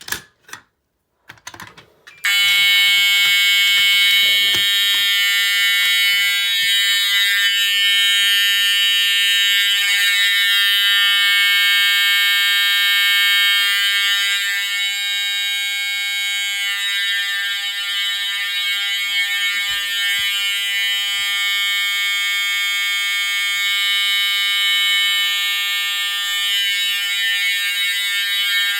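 A few clicks, then about two seconds in an Edwards pre-Integrity fire alarm horn starts sounding continuously: one steady, unbroken tone with many overtones that holds to the end.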